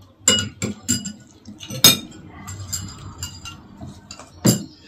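Metal spoons clinking against ceramic plates and bowls during a meal: a handful of sharp clinks, the loudest about two seconds in and another near the end.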